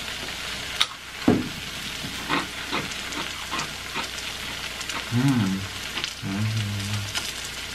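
Melted cheese sizzling in a steady hiss on a hot electric griddle, with sharp crunches of crunchy corn chips being bitten. Someone hums "mm" twice near the end.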